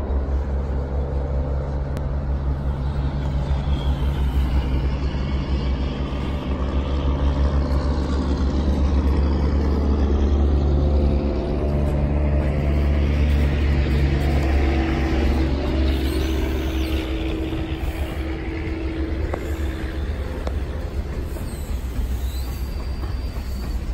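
New Jersey Transit diesel-hauled commuter train pulling out, its locomotive engine running with a steady low drone as the double-deck passenger cars roll past on the rails.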